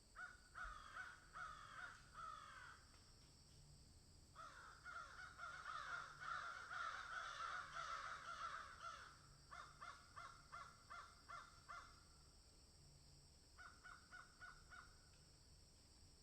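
Several crows cawing: a string of caws, then a dense stretch of overlapping calls from a few birds together, then two runs of short, quick caws. A steady faint hiss lies underneath.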